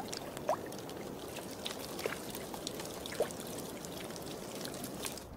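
Water trickling and dripping at the edge of thawing ice, with scattered drips and a few small plops.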